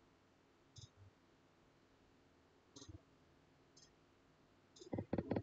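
Faint computer mouse clicks, a few single clicks spaced a second or more apart, then a quick run of louder clicks near the end.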